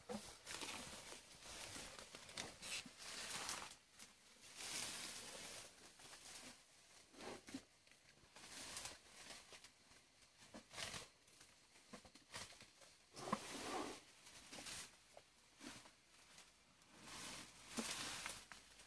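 Asian elephant feeding in thick undergrowth, its trunk tearing and pulling leafy bamboo and grass. The sound is faint, irregular rustling and ripping of leaves and stems, one burst every second or two.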